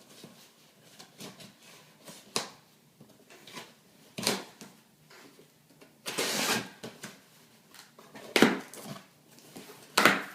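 A box being opened and its packaging handled: scattered knocks, scrapes and rustles, with a longer rustle about six seconds in and sharp knocks near the end.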